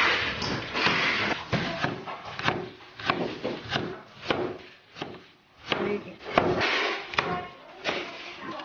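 Chinese cleaver chopping garlic and red chillies on a wooden cutting board: irregular knocks of the blade on the board, about one or two a second.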